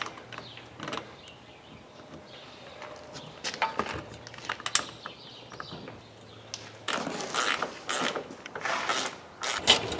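Scattered small clicks and light scraping of metal hardware as the latch knob is worked onto the skid loader's new cab window, growing busier for the last three seconds.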